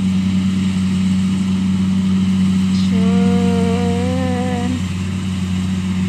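Rice combine harvester's diesel engine running with a steady drone as it works through the muddy paddy. About halfway through, a short held higher tone sounds over it for under two seconds.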